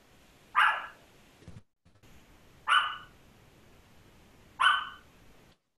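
A dog barking three single barks, about two seconds apart. The audio cuts out completely twice for a moment, as on a glitchy call connection.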